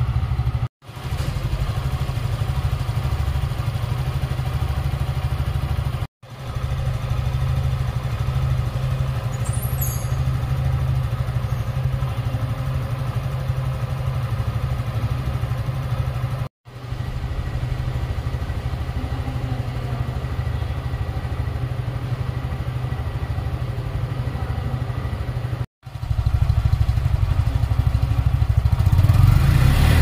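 Suzuki Gixxer 150's 155 cc single-cylinder four-stroke engine idling steadily, the sound broken by four very short gaps, then revved up near the end.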